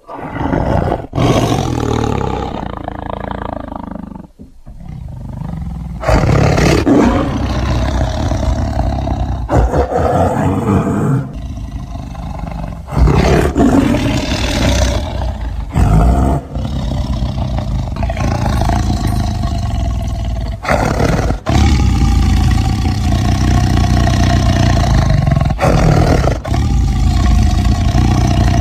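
Big cats, lions and tigers, growling and roaring: a string of deep calls spliced one after another, with abrupt cuts between the recordings.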